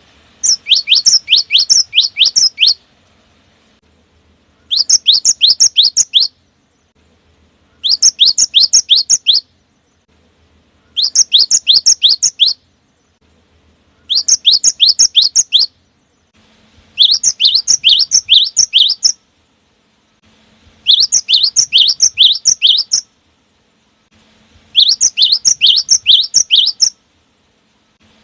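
Cinereous tit (gelatik batu) singing in loud bursts of rapid, sharply falling whistled notes, each burst about two seconds long and repeated eight times, roughly every four seconds.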